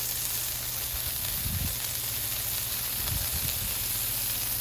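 Smashed ground-beef patties sizzling steadily on a hot Blackstone flat-top griddle.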